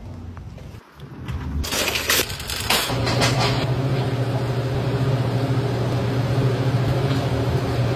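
A few crackling clicks and rustles, then a steady low mechanical hum of a large stockroom from about three seconds in.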